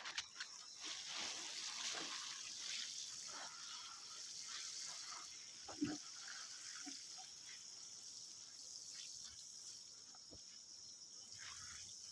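Steady high chirring of field insects, with scattered small rustles and clicks and one short knock about six seconds in.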